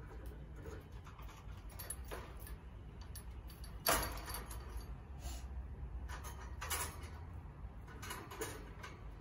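A wire birdcage and its hanging wooden-bead swing knocking and rattling as an agitated rosy-faced lovebird flaps and lunges about. The sound is a string of separate clicks and clatters, the loudest about four seconds in.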